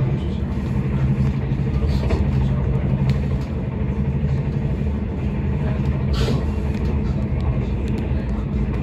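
Steady rumble and low hum inside an intercity train running along the track, with a couple of short clicks, one about two seconds in and one about six seconds in.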